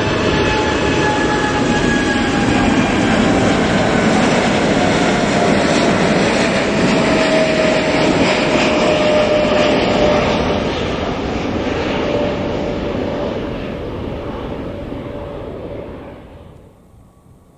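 Boeing 747-8F freighter's four GEnx-2B turbofans at takeoff thrust as it climbs out overhead: a loud, steady jet noise with a whining tone that slowly falls in pitch as it passes. The noise fades over the last few seconds and drops away sharply near the end.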